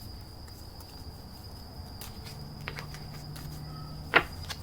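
Scattered light clicks and taps, with one sharp louder click about four seconds in, over a steady high-pitched whine.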